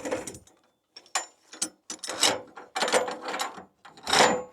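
A metal ratchet mechanism on the sawmill clicking in a series of short bursts, about six in all, with a faint metallic ring.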